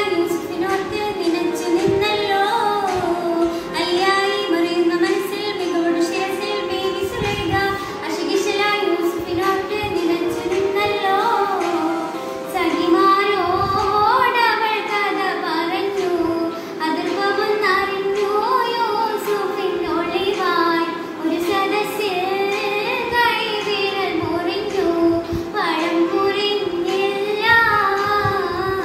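A young girl singing a song solo, a melodic line with gliding, wavering notes, over a steady held tone underneath.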